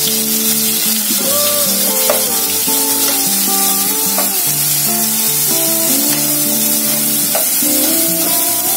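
Garlic and shallot paste sizzling as it fries in hot sesame oil, stirred with a metal spoon in a nonstick pot, over background music with a melody.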